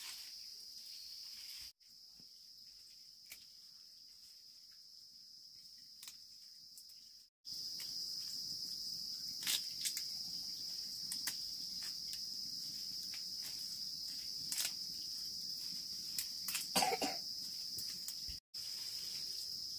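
Steady high-pitched chirring of insects, with scattered light clicks and a brief louder sound near the end. The sound drops out abruptly a few times.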